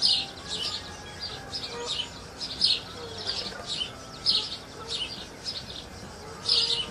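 Small birds chirping, short high chirps repeating about twice a second.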